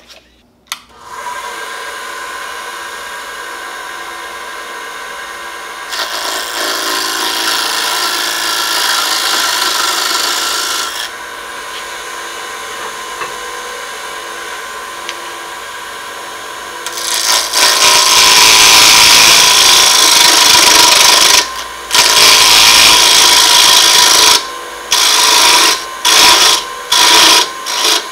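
Wood lathe starting up and spinning a square hickory blank, its motor running with a steady whine, while a turning tool cuts the wood round. The rough cutting noise swells from about 6 to 11 s and again from about 17 s, then comes and goes in short bursts near the end as the tool is lifted on and off the work.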